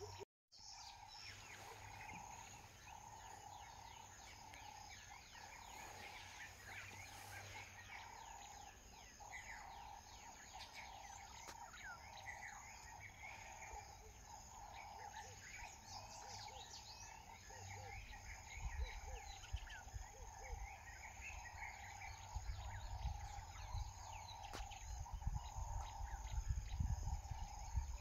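Savanna ambience: many short bird chirps over a steady, pulsing animal chorus. Low rumbling gusts join about two-thirds through and grow stronger toward the end.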